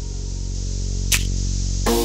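Background music: sustained chords with a sharp percussive hit about a second in.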